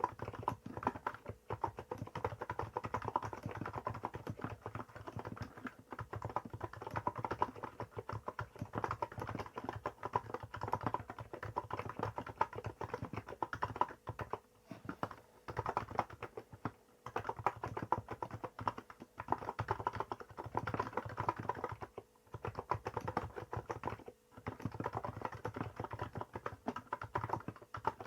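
Continuous typing on a Hansung GK868B electrostatic capacitive keyboard with 50 g switches and Apple-style keycaps: dense runs of key presses, broken by several brief pauses.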